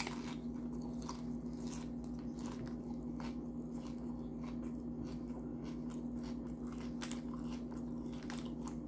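A person chewing a mouthful of Doritos tortilla chips loaded with taco toppings: close, irregular crunching throughout, over a steady low hum.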